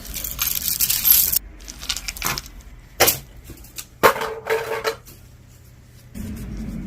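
Costume jewelry clinking and rattling as pieces are rummaged through and handled, a busy clatter for the first second and a half, then sharp clacks about three and four seconds in.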